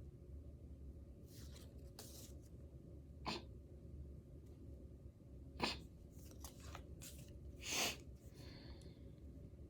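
Soft, brief rustles and crinkles of gift wrapping and packaging being handled, a handful of separate short sounds, the loudest two a little past halfway and near the end.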